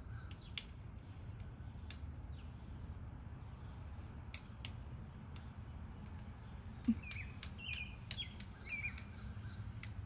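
Crow cawing in the distance: a few short caws in the second half, over a steady low outdoor rumble and scattered sharp clicks.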